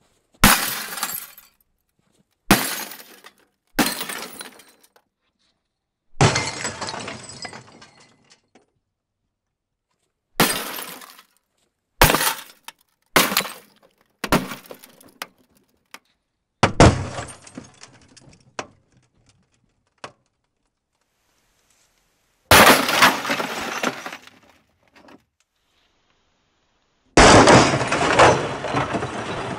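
A computer screen's glass being smashed in about eleven separate blows, each a sharp crash followed by a second or two of glass shards tinkling and settling. The last two crashes, about 22 and 27 seconds in, are the longest and heaviest.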